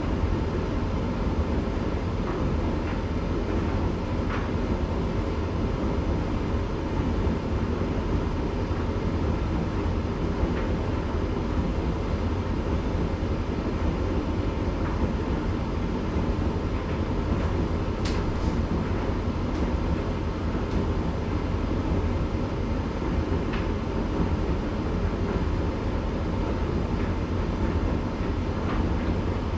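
Candy GrandO 9 kg tumble dryer running in its cool-down stage, the drum turning with a steady low rumble and hum and occasional light ticks.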